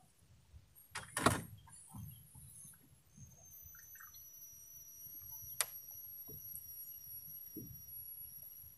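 Knocks and clicks of fishing gear and the wooden boat, over faint lapping water: two knocks close together about a second in, and a single sharp click past the middle. A thin steady high tone runs on from about three seconds in.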